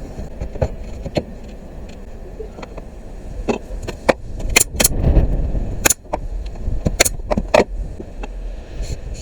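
A string of a dozen or so sharp knocks and clicks over a low rumble, most of them bunched in the middle of the stretch.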